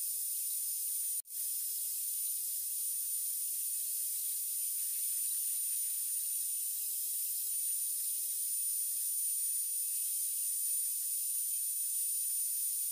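Angle grinder fitted with a cone-shaped abrasive bit running at speed while the wood-scaled aluminium slingshot frame is shaped against it: a steady high whine over a grinding hiss. The sound cuts out for a moment about a second in.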